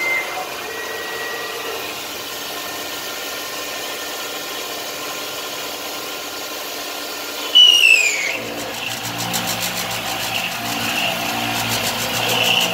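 Enshu 609DD-1 milling machine's spindle driving an end mill through a metal plate, a steady whine with several held tones. About seven and a half seconds in, a short, loud falling whine, after which the cutting turns into a lower, pulsing drone.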